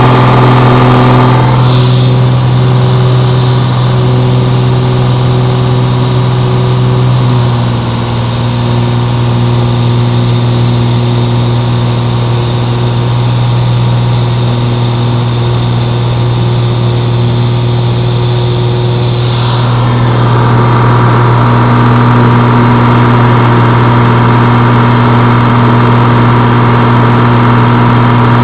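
Aircraft engine running at a steady pitch during takeoff, a constant loud drone heard from on board.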